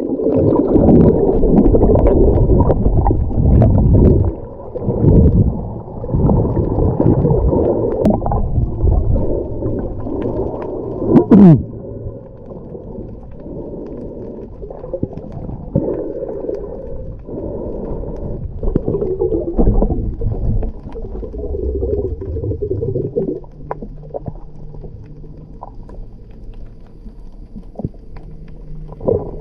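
Muffled underwater water noise heard through an action camera's waterproof housing: churning water and bubbles from a swimmer moving under a sailboat hull. It is busy and uneven at first, with a short loud rush a little after ten seconds in, then settles to a quieter rumble.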